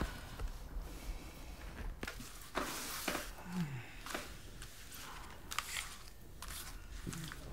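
Tarot cards being shuffled and spread across a table by hand: a series of soft swishing slides of the cards, the longest about three seconds in.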